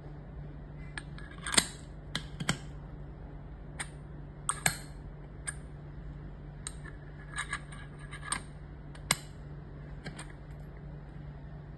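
Irregular sharp clicks and knocks of a plastic herb grinder and cone loader being handled, about a dozen in all, over a steady low hum.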